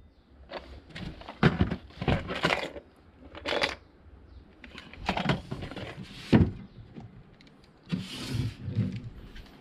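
Small clear plastic lure boxes being handled: irregular clicks, knocks and rattles as the boxes are picked up, turned over and moved about on a cabinet shelf.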